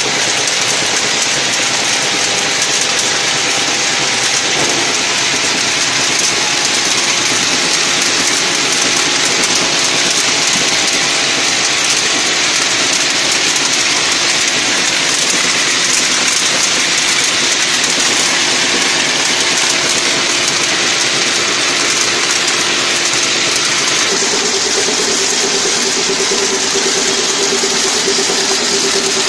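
High-speed automatic toffee packing machine running steadily, a dense, even mechanical whir with faint hums under it; a buzzing tone joins near the end.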